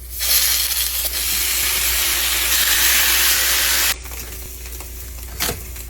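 A loud, steady hiss that cuts off suddenly about four seconds in, followed by a much quieter hiss and a single click near the end.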